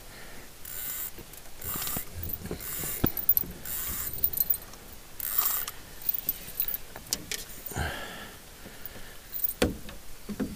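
Rustling and light metallic jingling and clicking from fishing gear being handled close to the microphone, in short scattered bursts with a few sharp clicks.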